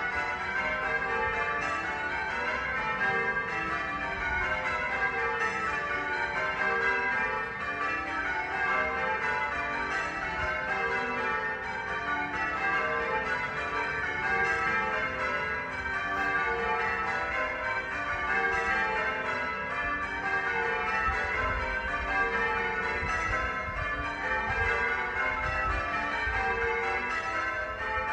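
Church bells ringing continuously, many bell tones overlapping without a break.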